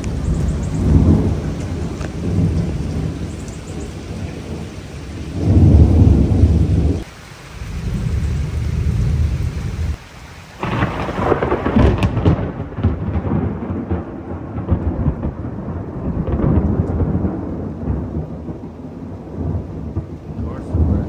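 Thunder rumbling deeply through a rainstorm, with the loudest peal about six seconds in. From about ten seconds in, heavy rain pelts the pavement while thunder keeps rolling.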